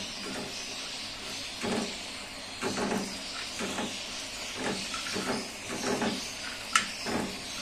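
Chopped almonds and coconut being lightly roasted in ghee in a metal frying pan, stirred with a silicone spatula, making a soft scrape with each stroke over a steady hiss. A sharp click comes near the end.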